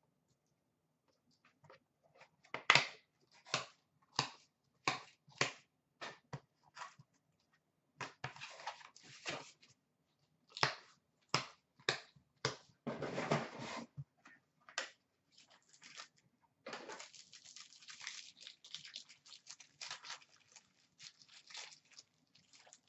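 A string of sharp clicks and snaps as a trading-card pack box is worked open. From about two-thirds of the way through come crinkling and rustling as clear plastic wrapping is pulled off the cards.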